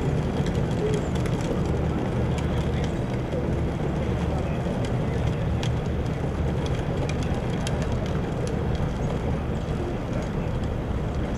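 An engine running steadily with a low hum, with scattered light clicks and knocks over it.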